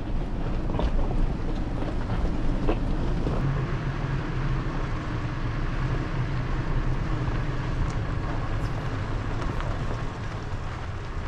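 Toyota Tacoma pickup crawling over a rocky off-road trail: steady engine hum and low road rumble, with a few sharp knocks from rocks under the tires in the first few seconds.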